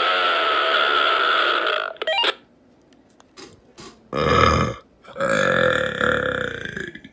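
Human burps in a row: a long burp that ends about two seconds in, a short burp about four seconds in, and a long drawn-out burp from about five seconds until just before the end.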